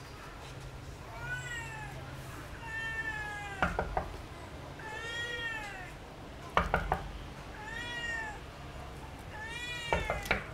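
A cat meowing about five times, each meow rising and then falling in pitch. Between the meows come sharp knocks on a door: one, then a quick group of three, then two more near the end.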